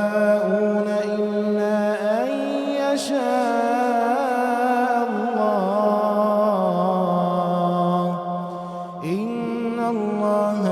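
Solo Quran recitation in melodic tajwid style: one reciter's voice draws out long held vowels with ornamented turns. The pitch steps up about two seconds in, and a new phrase begins after a brief pause near the end.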